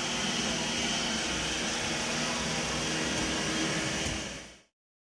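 Roomba robot vacuum running: a steady whirring hiss with a low hum under it, fading away quickly near the end.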